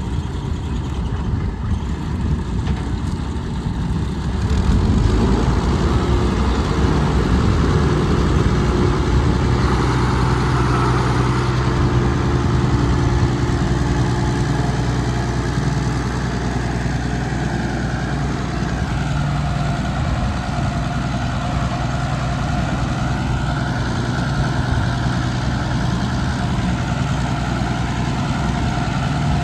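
Engines of heavy road-construction machinery running steadily, getting louder about five seconds in and then holding.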